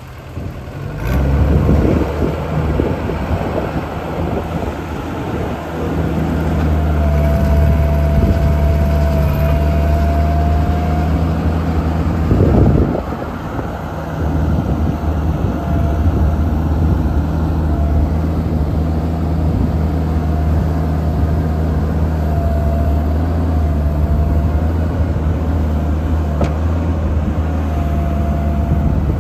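JCB Midi CX compact backhoe loader's diesel engine running steadily, picking up about a second in, with a thin steady high whine from about seven seconds on and a brief change in the engine note about thirteen seconds in.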